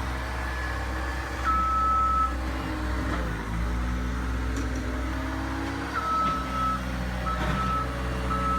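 Bobcat skid-steer loader's engine running steadily as it works, with its reversing alarm beeping. There is one long beep about a second and a half in, then a string of beeps from about six seconds in.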